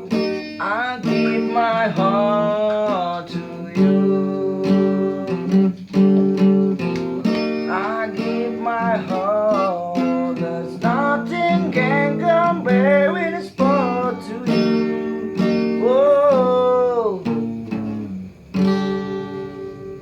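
Acoustic guitar strummed in steady chords under a sung melody with drawn-out, wavering notes. One last strum rings out near the end.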